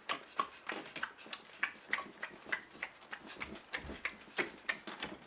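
A person making open-mouthed chewing noises: rapid, irregular wet smacks of the lips and tongue, several a second.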